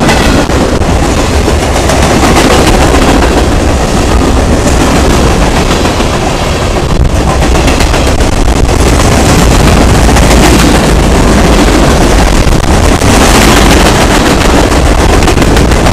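Freight train cars rolling past close by: steel wheels rumbling on the rails, with repeated clacks over rail joints.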